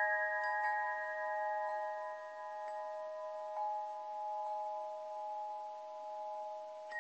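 Bell-like chimes ringing. A few soft strikes in the first seconds set several clear pitches sounding together, and they hang on and slowly fade. Fresh strikes come right at the end.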